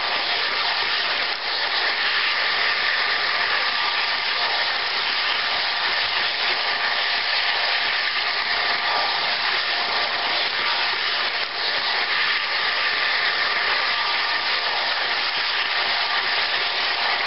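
Model train running fast around the track, heard from a camera riding on a Husky Stack car: a steady rushing whir of wheels on the rails, with a faint steady hum.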